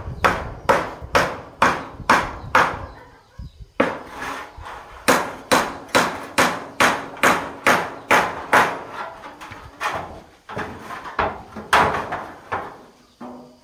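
Hammer driving nails into the roof of a bamboo-framed hut, most likely fixing corrugated metal roofing sheets. The blows come steadily at two to three a second, with a short pause about four seconds in.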